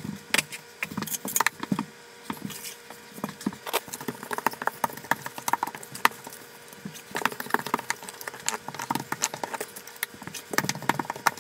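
Grout float scraping and clicking across glass subway tiles, spreading grout and pressing it into the joints in quick, irregular strokes.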